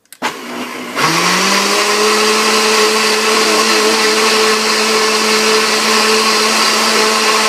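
Countertop blender switched on, its motor spinning up in pitch about a second in and then running steadily at full speed, blending water and milk.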